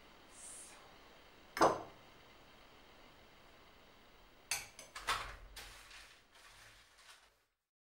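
Light clatter of kitchen utensils and dishes: one sharp knock about a second and a half in, then a cluster of knocks and clinks near the end, over faint room tone, cutting off just before the end.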